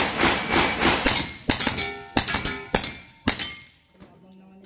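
A rapid string of about ten pistol shots in three and a half seconds, with steel target plates ringing after the hits.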